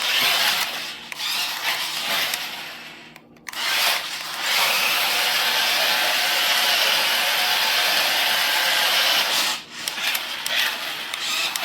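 Sideslider stunt RC car's small electric motors and gears running with a steady whir, stopping briefly about three seconds in and again near ten seconds.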